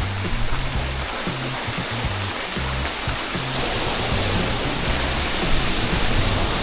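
Steady rushing roar of a waterfall in a narrow gorge, with background music's bass notes stepping along underneath.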